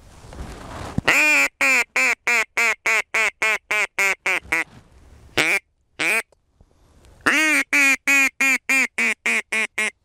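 Mouth-blown mallard duck call sounding a hen-mallard sequence of quacks, about three a second: a long run of about eleven, two single quacks, then another run of about nine. It is calling to passing flocks of ducks. A second of faint rustling comes before the first quack.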